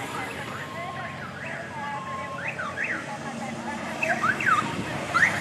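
Electronic siren on approaching escort motorcycles, sounding in quick rising-and-falling yelps that grow louder toward the end.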